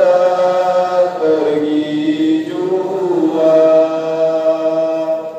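Chanting voices in about three long held notes that glide slowly from one pitch to the next.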